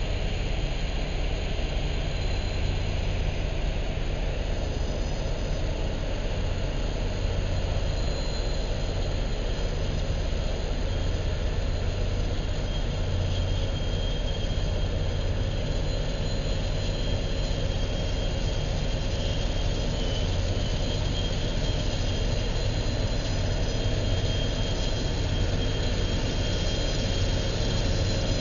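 Canadian Pacific track repair train running past: a steady heavy engine drone with a deep low rumble and a few faint, thin high tones over it, holding even throughout.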